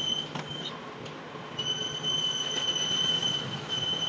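A steady high-pitched squeal of a tool working on metal. It comes in three stretches: briefly at the start, then for about two seconds from halfway through, then again near the end.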